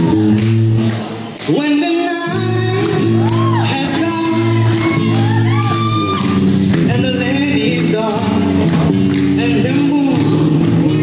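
A live song: a singer with acoustic guitar accompaniment, amplified through a stage sound system. The vocal line bends and glides over sustained low notes.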